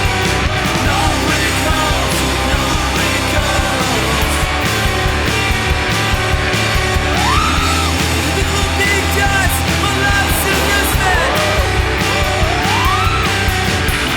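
Loud rock music with a singing voice, playing steadily throughout.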